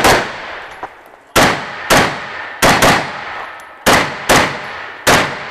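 Semi-automatic AR-style rifle firing rapid shots, about eight in all, mostly in pairs about half a second apart; each sharp crack trails off in a short echo.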